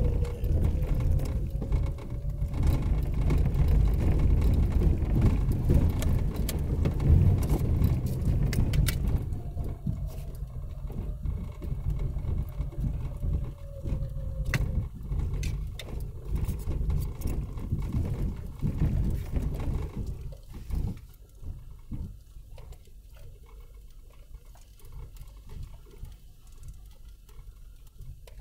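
4x4 vehicle crawling over a rough, rocky trail: a low engine and drivetrain rumble with stones clicking and knocking under the tyres, and a couple of slow rises and falls in pitch. About twenty seconds in the rumble drops away, leaving faint scattered clicks.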